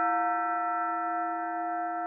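Synthesized audio model of a 4-pood Russian podzvonny bell, No. 5 of the Novodevichy Convent set, ringing out after a strike. Its low hum and several higher partials hold steady and slowly fade.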